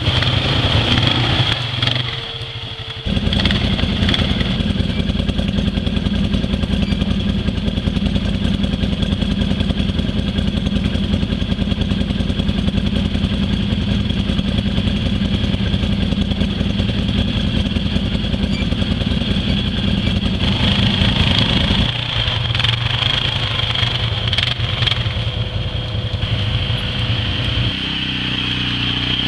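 Quad (ATV) engine running, easing off briefly about two seconds in and then held at a steady load. Its note changes about three-quarters of the way through.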